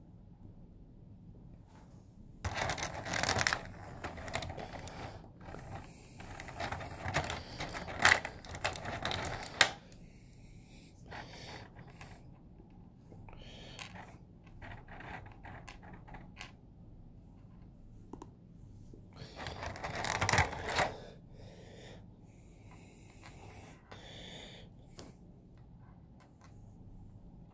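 Handling noise of small plastic action-figure hands: rustling and clicking in two stretches, the longer one a few seconds in and a shorter one past the middle, with light clicks as the parts are set down on a tabletop.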